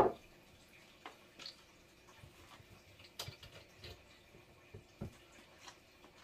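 A short knock right at the start, then quiet kitchen room tone with a few faint, scattered ticks and drips.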